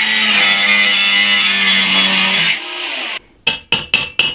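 Cordless angle grinder cutting through a small metal piece held in a vise, then spinning down about two and a half seconds in. Near the end, a hammer gives quick ringing taps on steel, about four a second, tapping a threaded-rod coupler into a hole in a square steel tube.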